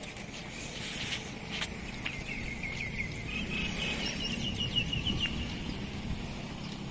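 A bird calling in two quick runs of short, high chirps, the second run pitched a little higher and lasting longer, over steady low outdoor background noise.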